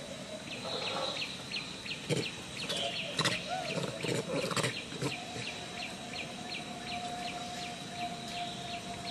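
Outdoor wildlife sound: a short high chirp repeated about three times a second over a steady high whine, with scattered clicks and rustling in the first half.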